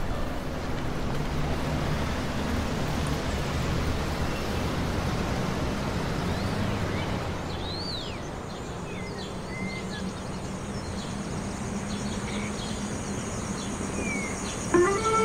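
Outdoor ambience: a steady wash of noise for the first half, then quieter evening air with scattered bird chirps. A few notes of music come in right at the end.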